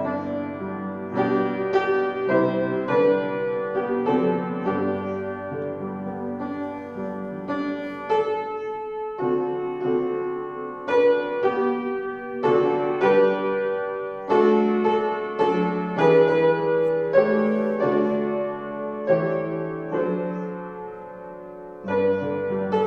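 Piano playing a piece in held chords with a melody on top, growing softer for a few seconds near the end.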